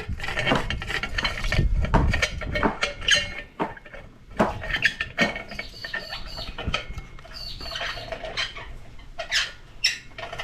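Hand tools and metal parts being handled: scattered metallic clinks and knocks with a few short high squeaks, as oxygen sensors are refitted into a gutted catalytic converter.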